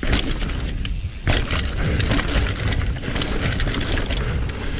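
Mountain bike descending a rough dirt trail at speed: a steady low rumble of wind and knobby tyres on dirt, with frequent clicks and knocks of the chain and frame rattling over roots.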